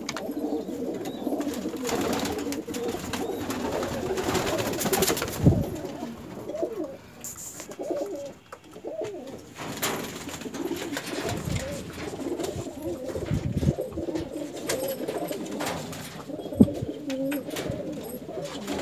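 A flock of domestic pigeons cooing together, many overlapping low calls with no break. A few sharp knocks cut through, the loudest about five seconds in and another near the end.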